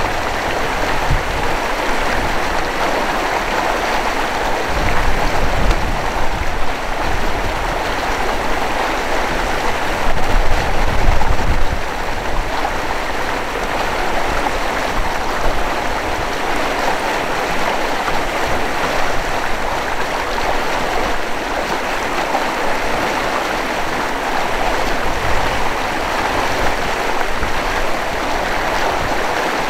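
Steady rush of fast-flowing water from a mountain lake's outlet current. Low rumbles come and go about five seconds in and again around ten to twelve seconds in, the loudest moment.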